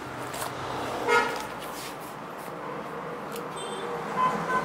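A vehicle horn toots once, briefly, about a second in, over a steady background of traffic noise. Two fainter, shorter tones follow near the end, along with a few light clicks.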